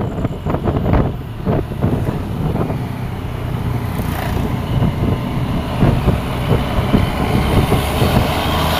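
A large road vehicle's engine rumbling as it approaches, growing slightly louder toward the end, with wind buffeting the microphone in the first two seconds.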